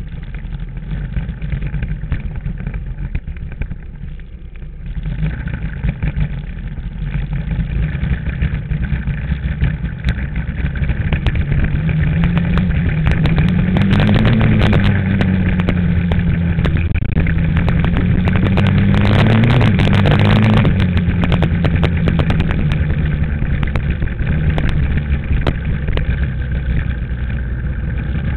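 Dirt bike engine running while riding, its pitch climbing and falling back twice in the middle as the throttle is opened and eased. A rushing noise grows louder over the same stretch.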